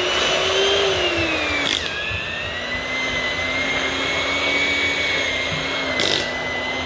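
Electric hand mixer running with its beaters in a pot of boiled potatoes and butter, mashing them. The motor whine drops in pitch a little under two seconds in, then holds steady, with two short knocks along the way.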